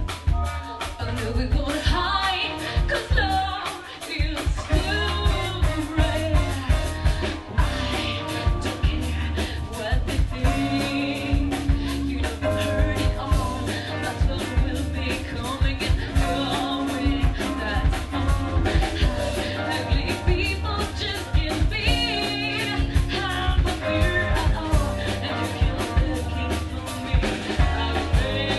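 A live rock band playing: a woman sings over a drum kit keeping a steady beat and an electric bass guitar.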